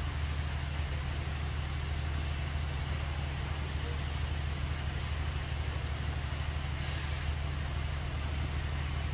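Steady low engine hum with a constant hiss above it, unchanging throughout; a brief high-pitched sound about seven seconds in.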